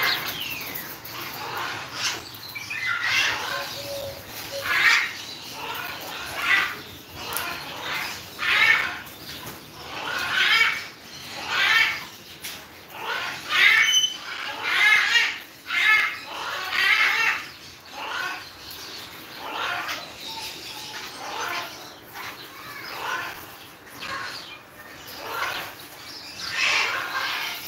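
Parrot squawking harshly over and over, about once a second.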